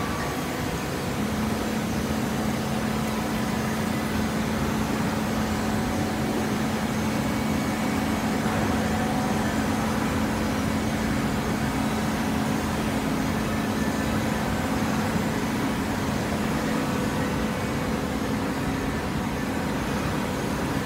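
Hydraulic shredded-paper baler running: a steady machine noise with a steady hum that comes in about a second in.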